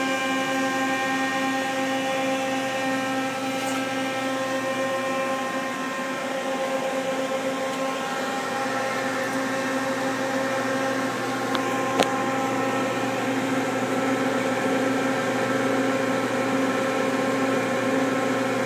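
Powered-up 1997 Mazak QT-20 CNC lathe humming steadily at standstill, its electrical cabinet cooling fans running, with several steady tones in the hum. A single sharp click about twelve seconds in.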